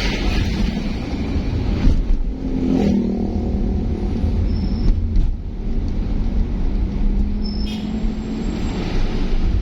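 Road vehicle driving along, with a steady low rumble of engine and tyres and a faint engine hum that comes and goes.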